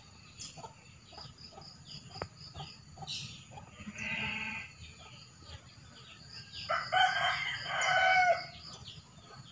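A rooster crowing: one louder crow of about a second and a half near the end, after a shorter, fainter call about four seconds in.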